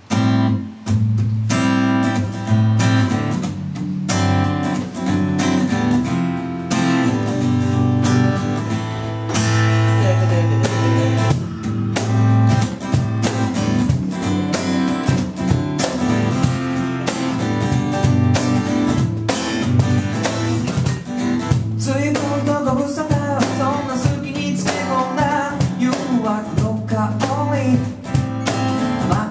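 Acoustic guitar strummed in steady chords with a cajon beating out the rhythm, starting a song right at the beginning. About 22 seconds in, a man's voice begins singing over them.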